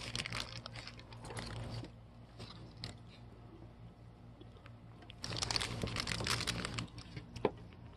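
A puppy crunching and chewing a hard pretzel, in two spells of quick crackly crunches with a lull between them.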